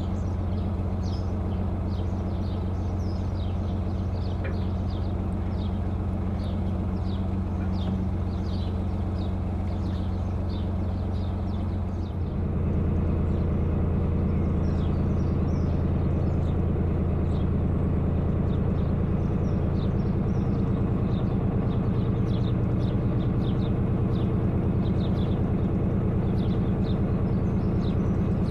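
Narrowboat diesel engine running steadily under way, getting louder about twelve seconds in as the throttle is opened. Birds chirp faintly over it.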